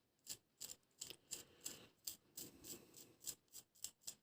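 Small knife blade scraping the burnt graphite washers of an electric sewing-machine pedal's carbon regulator, in short faint strokes about three a second. It is cleaning off the burnt-on layer that keeps the washers from conducting.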